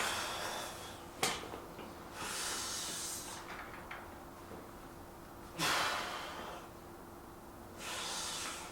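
A man breathing hard through exertion: four forceful breaths, a couple of seconds apart, with a single sharp click about a second in.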